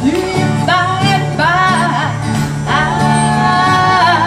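A live acoustic band is playing, with strummed acoustic guitars and a singer. It is amplified through PA speakers, and there are a few long held notes in the second half.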